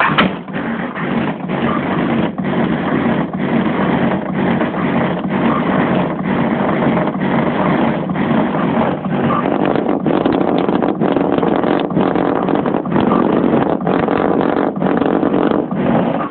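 Loud music with a steady beat about twice a second, played through a car audio system driven by a Crunch GTS 1100 amplifier.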